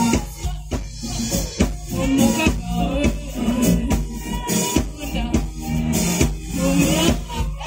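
Live band music with electric guitar and drum kit keeping a steady beat, and a voice singing over it.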